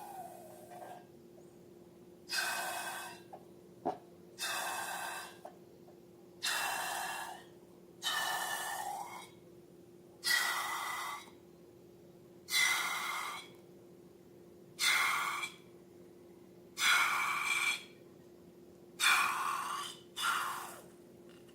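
A regular run of about ten rushes of air, each about a second long and about two seconds apart, like the strokes of a hand air pump.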